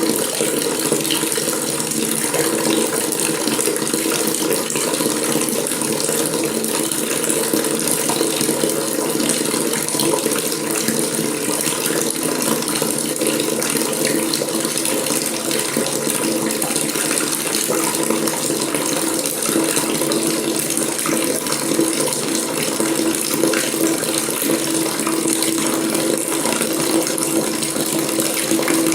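Water running steadily from a faucet into a sink or basin, an even rushing with a low ringing note under it.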